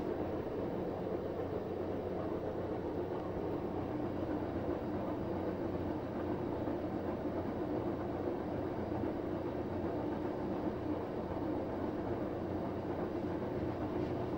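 Samsung WF9904RWE washing machine's empty drum spinning on its direct-drive motor during the Eco Drum Clean cycle: a steady, quiet machine hum.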